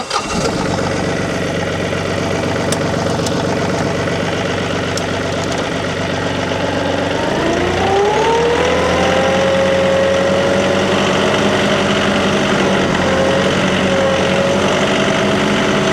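Tractor engine starting up and running. About seven seconds in, the throttle is raised: the pitch rises and then holds at a higher steady speed.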